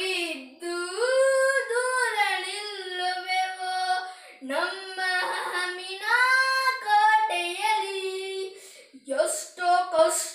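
A young boy singing a Kannada song solo, without instrumental accompaniment, drawing out long held notes that bend up and down in pitch, with short breaths between phrases.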